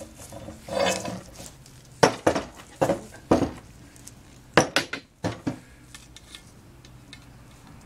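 Long 7/16-inch steel threaded rod being handled on a workbench, its length knocking and clinking against metal: several sharp metallic clinks, in one cluster about two to three and a half seconds in and another about four and a half to five and a half seconds in.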